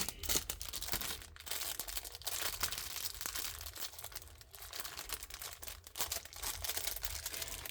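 Crinkly plastic packaging being handled and rummaged through, a dense irregular crackling with small clicks.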